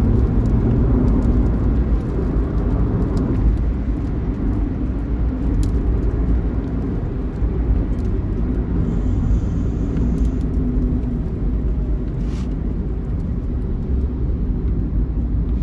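Large bus running at highway speed: a steady, heavy low rumble of engine and road noise.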